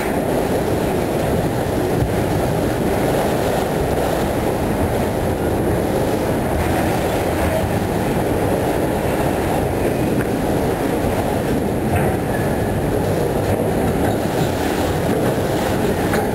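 Autorack freight cars rolling past close by: a steady rumble of steel wheels on the rails, with an occasional faint click.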